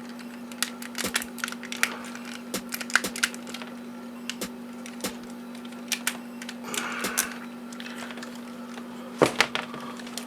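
Irregular plastic clicks and taps as the parts of an ABS plastic Transformers figure are handled, moved and tabbed into place, with a louder cluster of clicks about nine seconds in. A steady low hum runs underneath.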